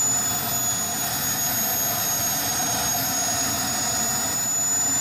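KingTech K-310 model jet turbine running steadily on the ground: a continuous high whine over an even rushing noise, its pitch dipping very slightly and recovering.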